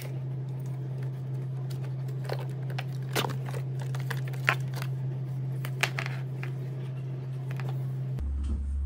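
Sharp plastic clicks of the iRobot Roomba Max 705 Combo's power button being pressed, three of them evenly spaced about a second and a half apart, confirming the request for drain mode; a steady low hum runs underneath.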